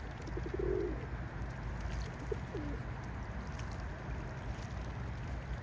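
Pigeons cooing: a short warbling coo just under a second in and two brief calls a couple of seconds later, over a steady low rumble.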